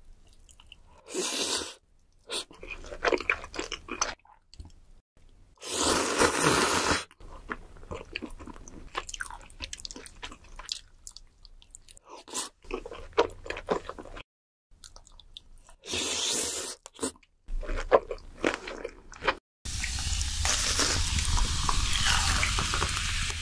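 Close-miked chewing and biting of butter-baked lobster meat and spaghetti, in irregular wet, crunchy bursts with short pauses between. About 20 s in, the eating gives way to a steady crackling hiss.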